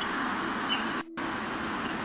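Steady hiss of outdoor background noise picked up by a doorbell camera's microphone, with a faint steady hum; the sound cuts out completely for a moment about halfway through.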